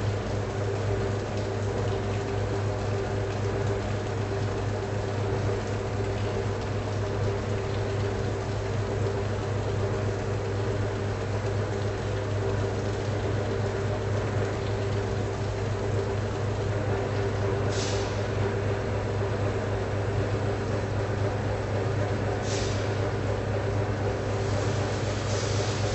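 Pipe inspection machinery running with a steady low hum. A few short hisses come in over the last several seconds.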